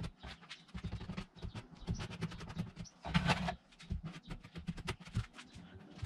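Hand work on a foam-board strip at a bench, sped up: rapid, irregular clicks, taps and scrapes of tools and hands on the board, with a louder scraping rush about three seconds in.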